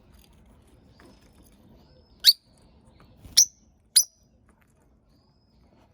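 Rosy-faced lovebirds calling: a few faint, soft peeps, then three loud, sharp shrieks in the second half, the last two close together.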